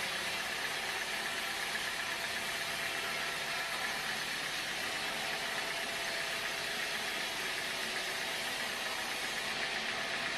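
Sawmill machinery running steadily: an engine drone with a steady hiss, unchanging in pitch and level.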